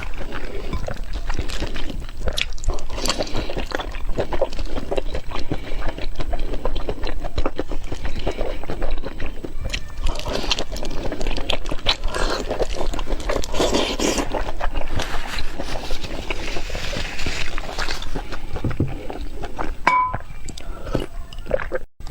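Close-miked eating: continuous chewing and biting with wet, crunchy mouth noises, broken by a brief drop near the end.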